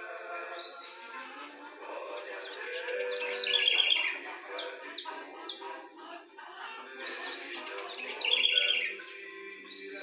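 White-necked thrush (sabiá-do-papo-branco) calling again and again near its nest of chicks: a busy series of short, sharp high chips mixed with buzzy chattering phrases, loudest twice, a few seconds in and near the end. These are the parent bird's agitated calls at the nest.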